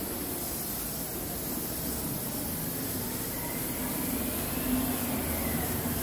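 Compressed-air spray gun hissing steadily as it sprays lacquer onto carved wooden furniture, over a low steady hum.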